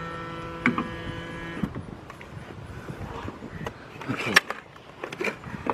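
Hydraulic pump motor of the Mercedes SLK230's retractable hardtop humming steadily, then cutting off about a second and a half in. Scattered clicks and knocks follow, with a sharp click about four seconds in.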